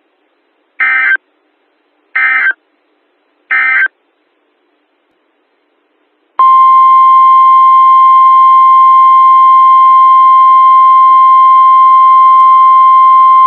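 Three short bursts of EAS digital data screech about a second and a half apart, the end-of-message code closing a weather warning. After a pause, a steady single-pitch NOAA Weather Radio alert tone at about 1050 Hz starts about six seconds in and holds, signalling the next warning.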